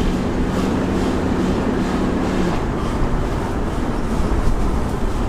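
Car driving along the road: steady rumble of road and engine noise, with a low hum that stops about two and a half seconds in.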